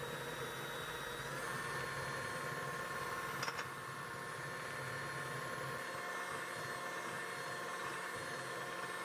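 Electric hand mixer running steadily, its twin wire beaters whisking eggs and sugar in a glass bowl; the pitch of its whine steps up a little just over a second in. A single sharp click sounds about three and a half seconds in.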